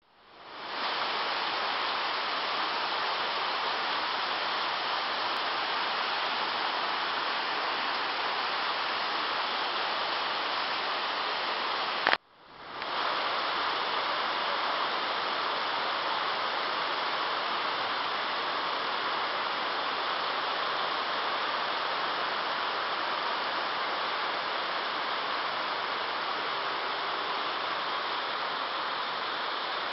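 Steady rain falling, an even hiss of water. About twelve seconds in, a sharp click cuts it off briefly and the rain fades back in.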